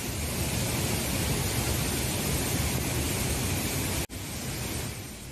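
Rain-swollen waterfall in flood, a steady rush of falling water. The sound breaks off sharply about four seconds in, then carries on a little quieter.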